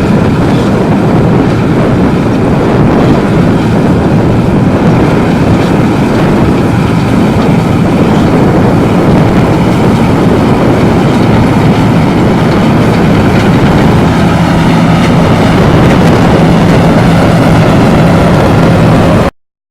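Harvest machinery running steadily at close range: a constant engine hum under dense mechanical noise, with no change in speed.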